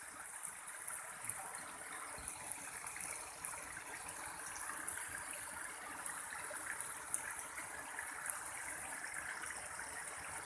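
Recorded swiftlet calling sound (a 'PJW' setting) playing through speakers: a dense, steady chatter of many high little chirps with no break.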